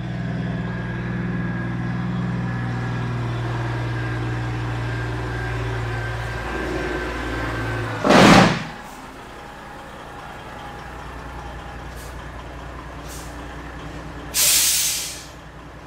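Kenworth semi truck's diesel engine running as the truck pulls slowly into a shop. About halfway through comes a loud, short hiss of air from the air brakes, after which the engine is quieter; near the end comes a second, higher air hiss.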